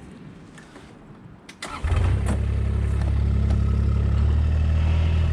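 An engine starts about a second and a half in, with a couple of quick clicks just before it catches, then runs steadily at a low, even pitch. The note drops a little about four seconds in.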